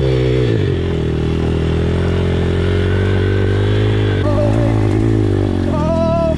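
Apollo RFZ pit bike's swapped-in 150cc single-cylinder four-stroke engine under hard throttle, holding high revs with small rises and dips in pitch as the rider pulls along a dirt trail.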